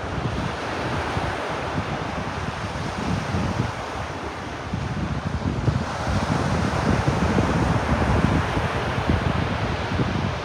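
Ocean waves washing on a beach, a steady hiss of surf that swells about midway through, mixed with wind buffeting the microphone in a low, uneven rumble.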